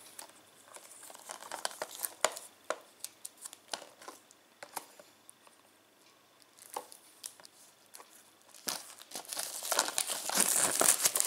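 Plastic shrink-wrap on a Blu-ray case being picked at and torn open, crinkling and crackling. Scattered light crackles at first, a quieter stretch in the middle, then dense, louder crinkling over the last few seconds as the wrap comes away.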